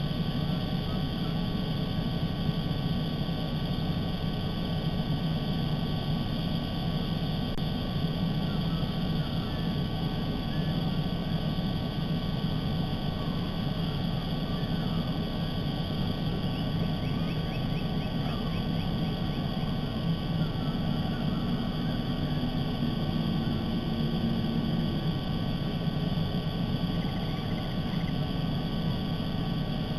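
Steady low outdoor rumble with faint, scattered bird chirps through it. A low drone rises out of the rumble from about twenty to twenty-five seconds in.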